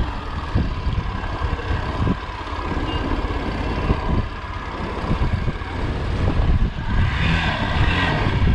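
Hero Xpulse 200's single-cylinder engine running as the motorcycle rides a dirt track, with heavy wind rumble on the microphone.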